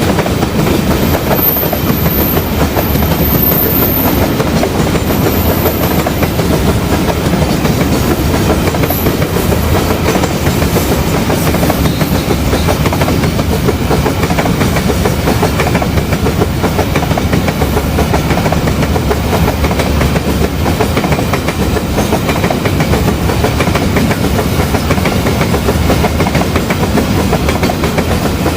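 Diesel-electric locomotive running steadily under way, with train wheels clattering over the rail joints.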